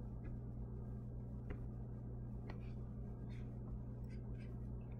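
Quiet room tone: a steady low electrical hum with a few faint, scattered clicks.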